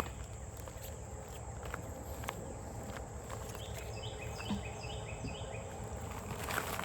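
Outdoor ambience: wildlife chirping in quick runs of short falling notes, over a steady low rumble, with a few faint clicks.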